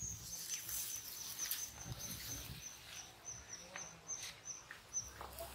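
A high, thin animal call, held steady for about three seconds and then broken into short pulses, about three a second, stopping shortly before the end, with a few faint clicks alongside.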